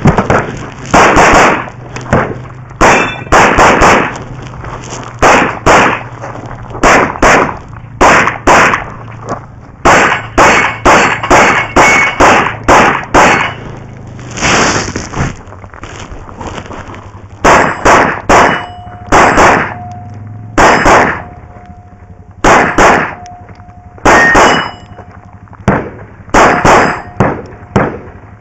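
Glock pistol with a red-dot sight fired rapidly, mostly in quick pairs, with a short pause about halfway through for a magazine change. Hit steel targets give a faint ringing clang after many of the later shots.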